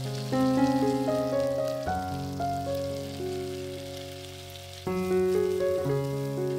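Instrumental background music of sustained notes, with new chords coming in about two and five seconds in, over a faint sizzle of chopped broccoli, onion and bacon frying in oil in a pan.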